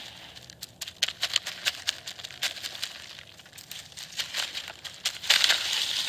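Dry leaves and soil crackling and crunching as a hand tool is pushed and worked through the dirt: a run of sharp, irregular crackles, with the loudest crunching about five seconds in.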